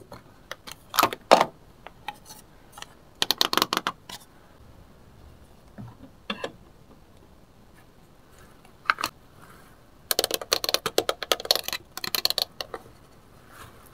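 Small plastic toy pieces clicking and clattering as they are handled and set down: a few short bursts of clatter, then a longer run of rapid rattling clicks lasting a couple of seconds about ten seconds in.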